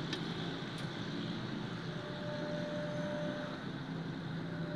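Steady machine hum, with a faint thin whine that comes in about two seconds in, drops out, and returns near the end; a couple of light clicks in the first second.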